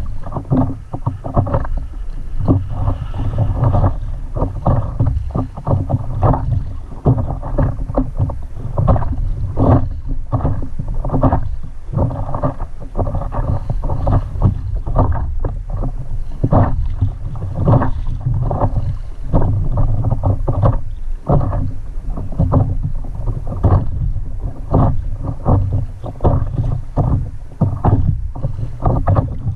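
Water slapping and splashing against a stand-up paddleboard in light chop: many short, irregular splashes several times a second over a steady low rumble of wind on the microphone.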